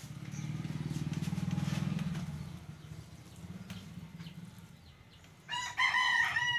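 A motor engine running, swelling and then fading over the first two seconds or so. Near the end comes the loudest sound: a high-pitched animal call of a few short notes.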